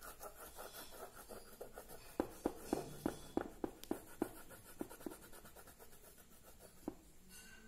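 Black oil pastel being scribbled on drawing paper: a run of soft, short scratchy strokes, quickest and loudest in the middle.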